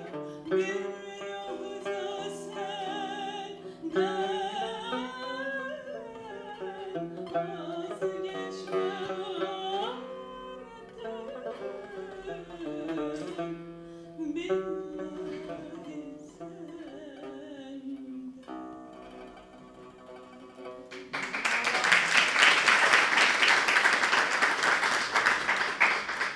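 A woman sings a Turkish classical song, her held notes wavering and ornamented, accompanied by a plucked tanbur. After the last notes, audience applause breaks out for the final five seconds or so.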